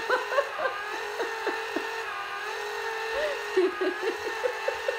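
Small battery-powered motor of a Hot Wheels toy garage running with a steady whine.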